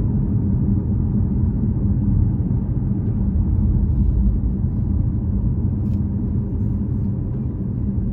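Lexus LC sports car running at a steady pace, a continuous low rumble of engine and road noise.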